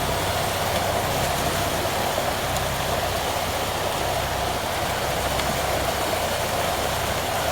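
A steady machine hum with an even hiss over it, like a small motor running, unchanging throughout.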